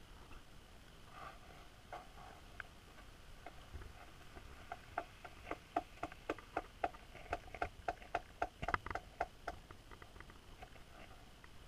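A run of short, sharp clicks picked up underwater, about four a second. They are sparse and faint at first, grow dense and loudest through the middle, then thin out.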